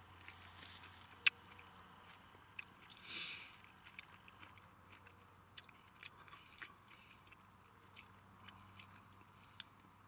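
A person biting and chewing mandarin orange segments close up, with small wet mouth clicks throughout and a short louder noise about three seconds in.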